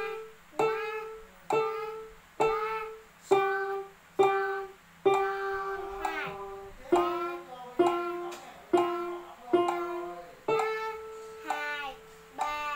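Casio electronic keyboard played one note at a time in a slow melody, about one note a second, each note starting sharply and fading. The notes step down in pitch and then jump back up to a long held note near the end.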